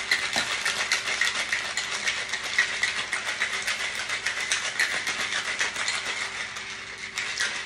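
Ice cubes rattling inside a stainless-steel cocktail shaker shaken hard, a rapid, steady clatter: the gin and vermouth being shaken over ice to chill them for a martini.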